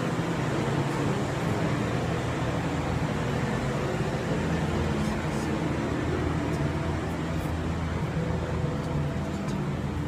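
A machine running with a steady low hum that does not change, with a few faint ticks over it.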